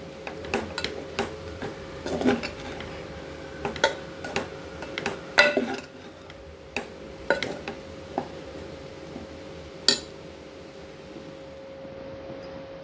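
Steel spoon scraping and clinking against a pot as raw rice coated in tomato masala is gently stir-fried. The scrapes and knocks come irregularly, with a sharp knock about ten seconds in, after which the stirring stops. A faint steady hum runs underneath.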